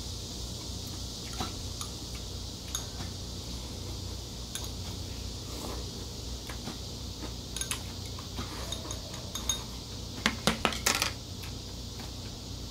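Metal chopsticks lightly clicking against a ceramic rice bowl, then a quick cluster of sharper clinks about ten seconds in as the bowl and chopsticks are set down on the table.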